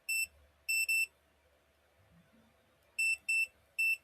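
Smart padlock's keypad beeping as the combination digits are pressed in: short, identical high beeps, three in the first second and three more near the end.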